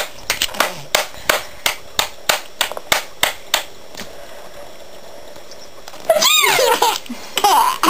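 Baby laughing: about a dozen short, sharp, breathy bursts, about three a second, for the first three and a half seconds. After a pause, two high squeals that rise and fall come near the end.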